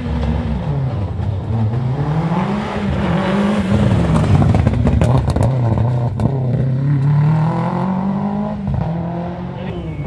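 Historic rally car's engine revving hard, its pitch climbing and dropping back several times, with a few sharp cracks in the middle.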